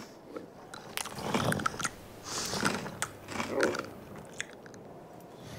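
Cartoon camel chewing and crunching on a paintbrush held in its mouth, in three short bouts about a second apart.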